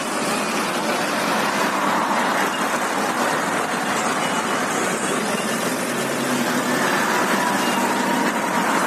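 Steady traffic noise from a long column of tractors and other vehicles driving past, their diesel engines running.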